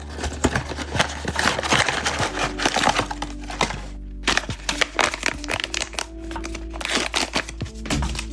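Background music over blind-box packaging being handled and opened, with dense crinkling and sharp little clicks.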